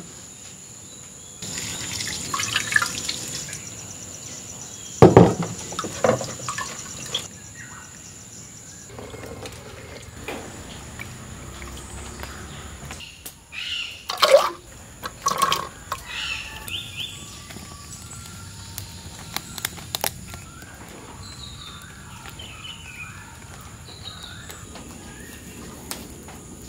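Water sloshing, splashing and dripping, with a few sharp knocks and plops as small green fruits go into a clay pot, the loudest of them about fourteen seconds in. Later, faint bird chirps.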